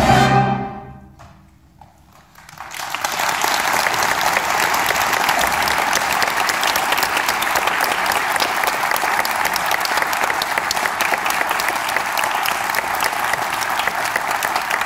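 A concert band's final chord, with brass and timpani, rings out and dies away in the first second or so. After a brief hush, audience applause begins about two and a half seconds in and carries on steadily.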